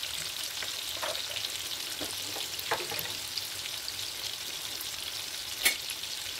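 Marinated chicken pieces frying in oil in a pan: a steady sizzle with scattered crackles and one sharp pop near the end.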